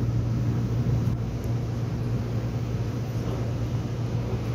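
Electric subway train heard from inside the passenger car: a steady low hum with an even rumble of the running train.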